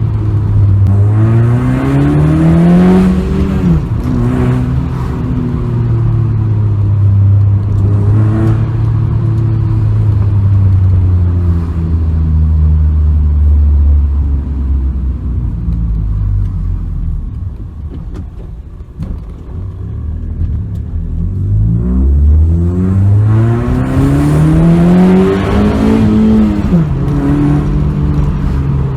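Honda Civic 1.8 engine and aftermarket exhaust heard from inside the cabin, revving up hard under acceleration, with the pitch dropping at a gear change about three seconds in, then pulling steadily. It eases off and goes quieter past the middle, then revs up hard again and drops at another gear change near the end.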